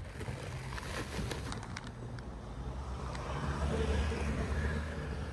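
A brief patter of small clicks about a second in as dry cat food is scattered onto paving stones. Then a car passes in the street, its noise swelling and fading around four seconds in over a steady low traffic rumble.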